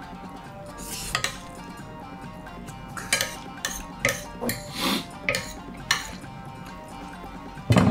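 Spoon scraping and clinking against a large plate as curry and rice are shovelled up fast: a dozen or so sharp clinks, busiest in the middle.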